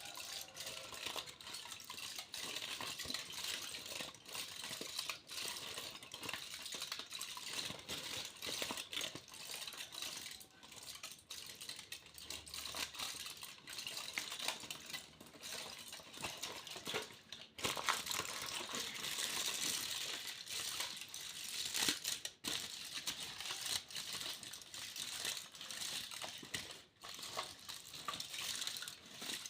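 Foil being crinkled and crumpled: a continuous crackling full of small sharp clicks.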